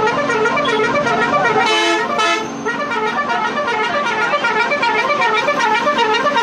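Vehicle horns: a musical horn plays a fast, repeating up-and-down warble throughout, and a plain steady horn blast cuts in briefly about two seconds in.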